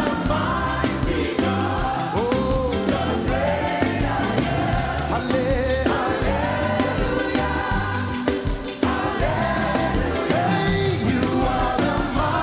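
Live gospel worship music: a choir and congregation singing with a band, with a steady bass and drum beat underneath.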